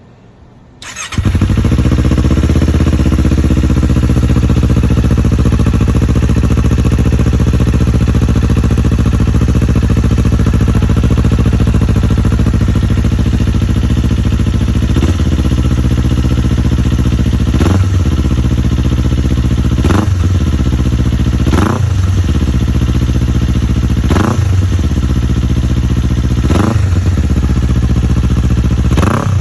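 Kawasaki Z400 parallel-twin engine, breathing through a Beams R-EVO2 slip-on titanium silencer, starts about a second in and idles steadily. From about halfway it is blipped seven times, each rev rising and falling quickly, roughly every two seconds.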